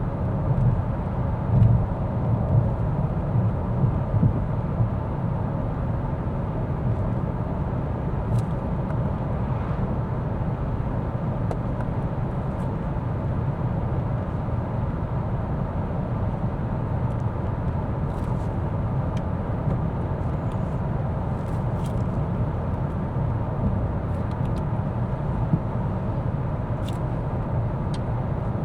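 Mercedes-Benz S 450d, a 3.0-litre inline-six turbo diesel, driving at a steady speed: a steady low rumble of tyre and road noise with engine hum. There are a few louder bumps in the first few seconds.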